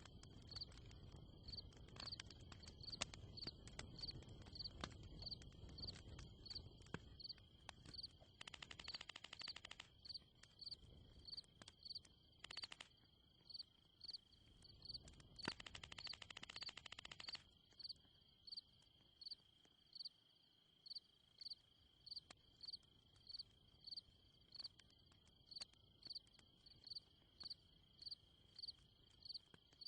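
Faint outdoor insect chorus: a continuous high trill with a short high chirp repeating steadily a little faster than once a second. A dense buzzing trill joins it twice for a second or two near the middle, over a faint low rumble in the first half.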